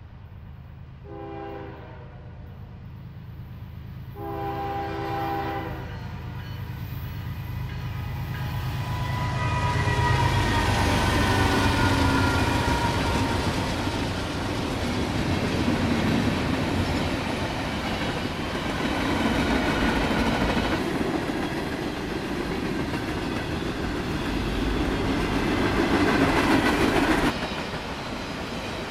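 Norfolk Southern diesel freight train at a grade crossing: two horn blasts, the second longer, then more horn dropping in pitch as the locomotives pass loudest. After that comes the steady rumble and clickety-clack of freight cars rolling by, which drops off abruptly near the end.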